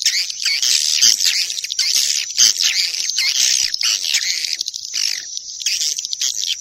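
Recorded swiftlet calls: a dense, continuous chorus of high twittering chirps. It is a swiftlet-calling lure sound, the kind played in swiftlet houses to draw the birds in to roost and nest.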